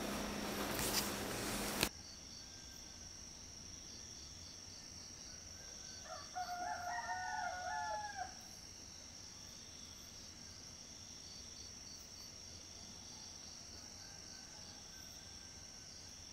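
A rooster crows once, about six seconds in, for about two seconds, over a steady high-pitched insect drone with faint regular chirping. Before that, a louder hissing noise with a few clicks cuts off suddenly about two seconds in.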